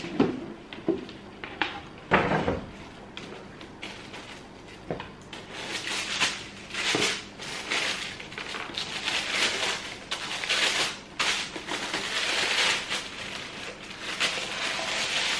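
A cardboard shoe box handled with a few sharp knocks as it is set down and opened, then tissue paper rustling and crinkling as it is unfolded, from about five seconds in.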